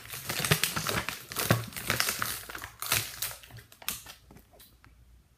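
Crinkling and rustling of a toy's plastic blind-bag packaging being handled and opened, a dense run of crackles that dies away about four seconds in.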